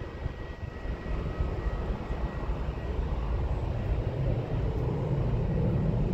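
Steady rumble of distant jet airliner engines, with a faint high whine that fades out in the first couple of seconds.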